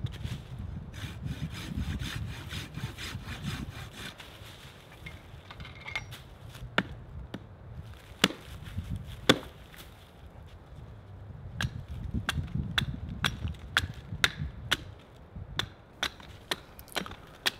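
A hand saw rasps back and forth through a wooden stick for the first few seconds. Then a small hatchet strikes the wood: a few single sharp knocks, followed near the end by a quicker run of knocks as the stick is split and shaped.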